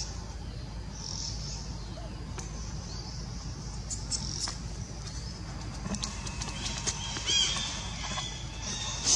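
Steady low outdoor background rumble, with a quick run of high chirping calls starting about six seconds in.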